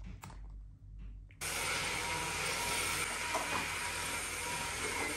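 Stick vacuum cleaner running steadily on a hard floor, a loud even hiss with a high motor whine, cutting in suddenly about a second and a half in after a few faint small sounds in a quiet room.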